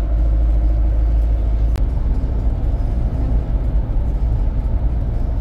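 Steady low rumble of a car's engine and tyres, heard from inside the cabin while driving through a road tunnel. A single faint click comes a little under two seconds in.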